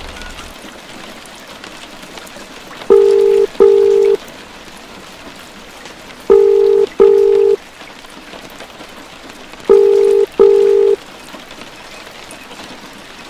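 Telephone ringback tone heard by the caller on a payphone: three double rings, each two short steady tones close together, about three and a half seconds apart, while the call rings unanswered at the other end. Steady rain runs underneath.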